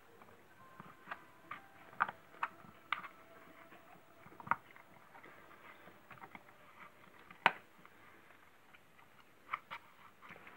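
A dog gnawing a dried beef ear chew: irregular crunches and cracks as its teeth work the hard cartilage, with one loud crack about seven and a half seconds in.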